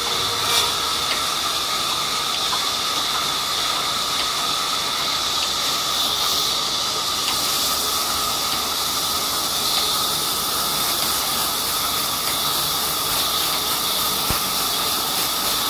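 Large belt-driven band sawmill running with its blade cutting through a mahogany log: a steady hiss with a constant whine, unchanging throughout.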